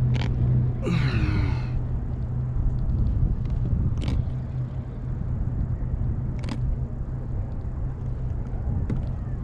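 Low, steady engine rumble, like a motorboat running nearby, strongest in the first second, with a few sharp knocks and a brief wavering pitched sound about a second in.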